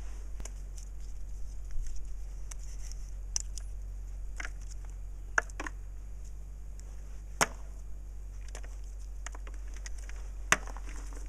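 Acorns dropping into a plastic bucket, a scatter of sharp clicks and knocks with three louder ones, about a third, two thirds and nine tenths of the way through, and a light rustle of dry leaves being picked through by hand.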